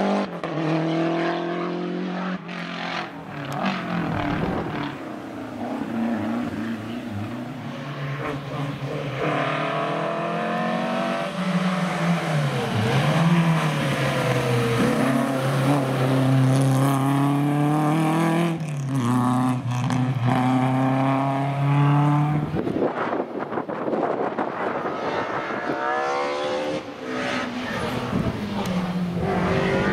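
Historic rally car engines at full throttle on a twisty special stage, several cars one after another. Each revs up hard through the gears, drops back as the driver lifts or shifts for a bend, then climbs again.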